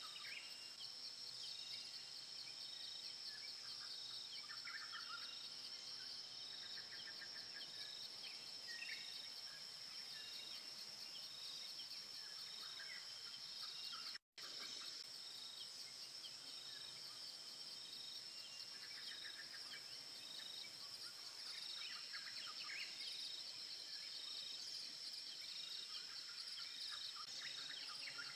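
Forest insects: a steady high-pitched drone with a regular pulsing call above it, and scattered short chirps. The sound drops out briefly to silence about halfway through.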